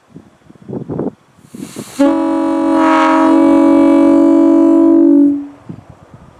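Locomotive air horn blown on compressed air: a short rush of air, then one steady blast starting about two seconds in and lasting about three seconds before it cuts off.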